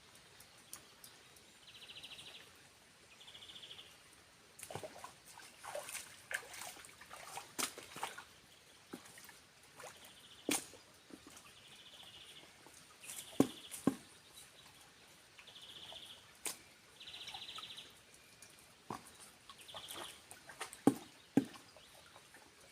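A bird giving short, buzzy trilled calls, repeated every second or two with gaps, mixed with scattered sharp clicks and taps.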